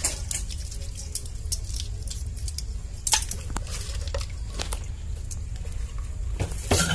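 Scattered light clicks and taps, spaced about a second apart, over a steady low rumble.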